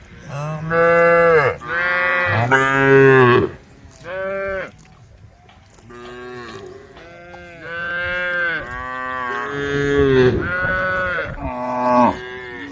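Cattle mooing: a series of long, loud calls one after another, some of them overlapping, from more than one cow.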